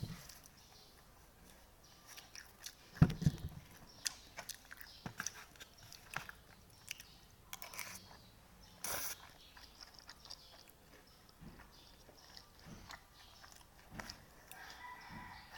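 Close-up chewing and eating sounds of a person eating pancit batil patong noodles: wet mouth smacks and scattered clicks, with a louder thump about three seconds in and a short hissing slurp-like burst near the middle.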